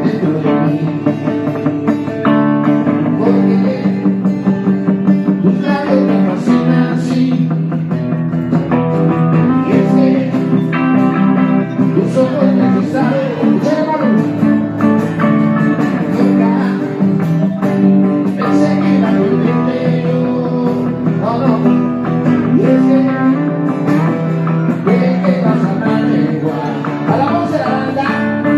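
Live acoustic guitar music: steady chords with a singing voice over them.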